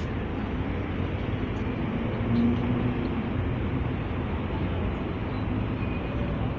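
Steady room noise of a large hall: an even rumble and hiss with a low hum, and a brief slightly louder low sound a little over two seconds in.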